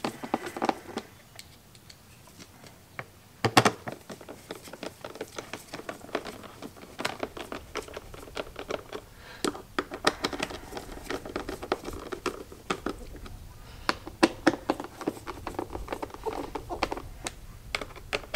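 Hand screwdriver driving screws into the plastic heater-core housing of a Chevrolet Silverado HVAC box: a run of small clicks and ticks with creaks of the plastic, and one sharp knock about three and a half seconds in.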